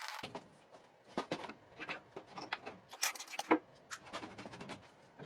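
Hand scraper scraping old paint off wood in short, irregular strokes, with a few louder scrapes about three seconds in.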